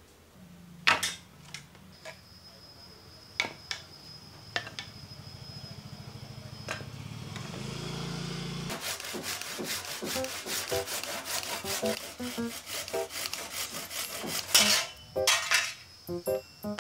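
Wooden branches knocking and rubbing against each other and against a tiled floor as they are picked up and laid down. There are a few sharp wooden knocks early on and a loud clatter of knocks about fifteen seconds in.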